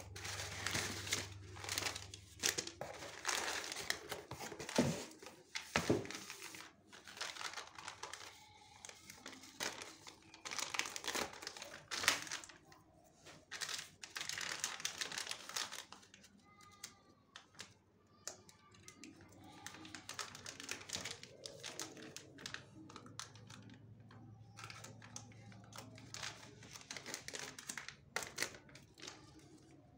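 Brown kraft packing paper crumpling and rustling as it is pulled from a cardboard box, then a plastic packaging pouch crinkling as it is handled, in irregular bursts.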